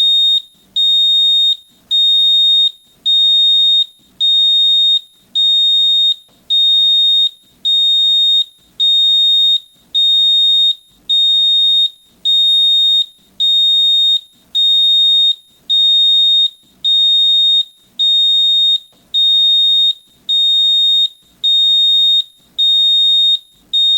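JIC gas leak alarm sounding: a single high-pitched beep repeating about once a second, each beep just under a second long with a short gap between, the alarm pattern that signals a detected gas leak.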